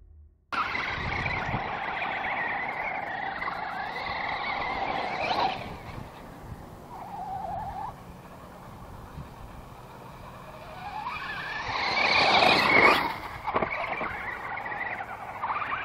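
Electric RC truggy driving on gravel: the whine of its Castle 3800 brushless motor with tire noise, steady for about five seconds, dropping away, then rising and growing louder from about eleven seconds in.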